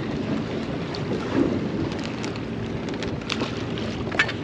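Steady wind noise on the microphone, with choppy river water washing against the hull of a small boat.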